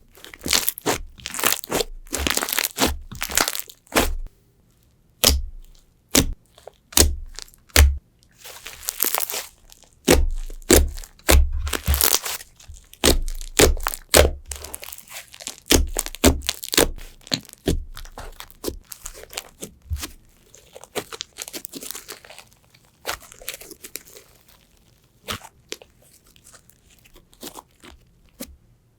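Slime being squeezed and pressed by hand, giving irregular sharp crackles and crunches in quick clusters with short pauses. The crackles grow fainter and sparser in the last third.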